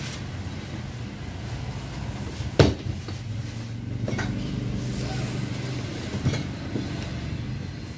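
A box being handled during unboxing: one sharp knock about two and a half seconds in, then two lighter knocks, over a steady low rumble.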